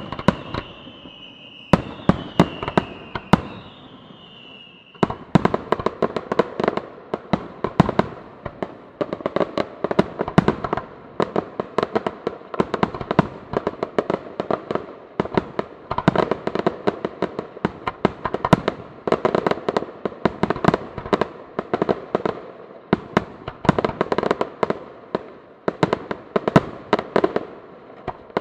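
Aerial fireworks display. For the first few seconds there are scattered sharp bangs under a wavering high whistle. About five seconds in, a dense barrage of bursting shells sets in, with loud reports several times a second.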